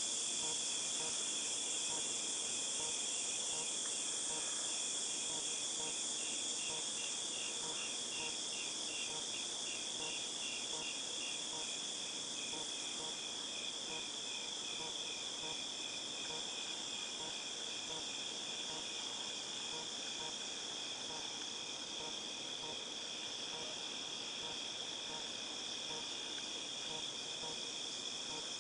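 Cicadas shrilling in a steady, high-pitched chorus, with a faster pulsing call layered in during the first half.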